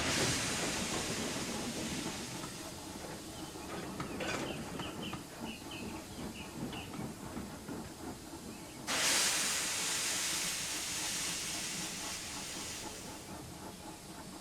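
A steam locomotive releasing steam: a loud hiss at the start that slowly fades, with a low rumble and a run of short squeaks in between. A second burst of steam hiss starts suddenly about nine seconds in and dies away over a few seconds.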